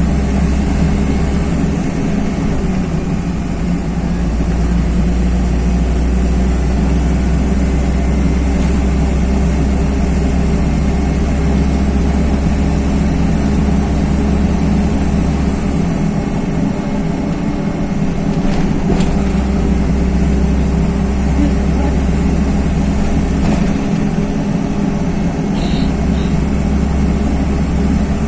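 Interior of a LiAZ-5292.21 low-floor city bus under way: the rear-mounted diesel engine drones steadily along with road noise, its low hum shifting a few times as the load changes.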